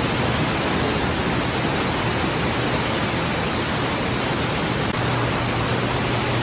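A steady, even rushing hiss with a low hum beneath it; its tone shifts abruptly about five seconds in.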